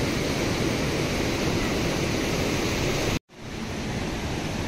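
Steady rushing of river water, an even hiss with no distinct events; it cuts out abruptly for a moment a little past three seconds, then fades back in.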